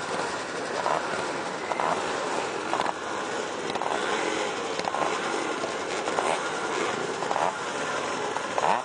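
Several vintage motocross motorcycle engines running.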